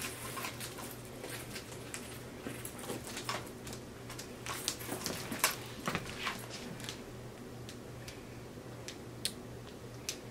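Two handbags being handled and lifted: scattered light clicks and rustles of the quilted faux-leather bags and their metal chain straps, thinning out near the end, over a low steady hum.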